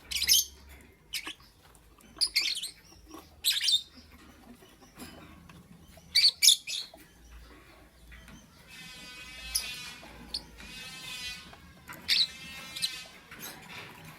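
Lovebird calling: sharp, shrill chirps and squawks in the first half, the loudest about six seconds in, then a longer warbling, buzzy chatter from about nine seconds on.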